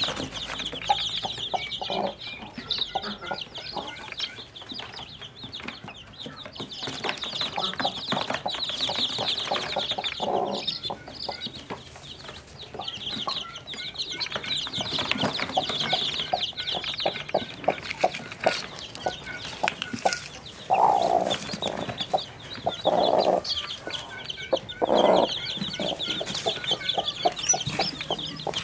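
A crowd of newly hatched chicks peeping shrilly and continuously, with a broody hen clucking loudly three times in the second half.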